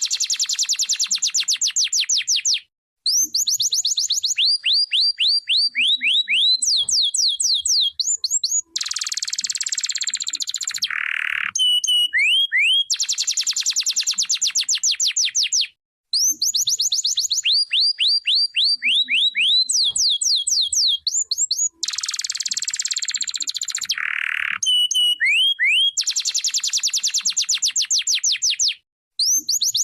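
Domestic canary singing: fast trills of rapidly repeated sweeping notes, phrase after phrase with short breaks, including a harsher buzzy phrase twice. The same song sequence comes round again about every 13 seconds.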